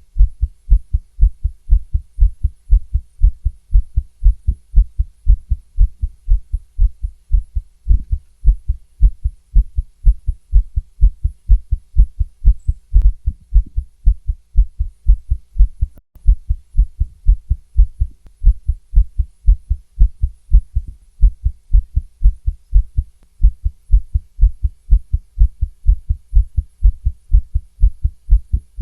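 Fast female heartbeat heard through a stethoscope: an even run of low lub-dub thumps.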